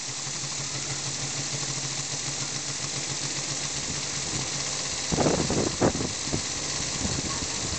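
Small model elbow engine running fast on compressed air at about 40 psi: a steady hiss of exhausting air over a rapid low hum. A short cluster of louder thumps comes about five seconds in, which is the engine vibrating on the cover it stands on.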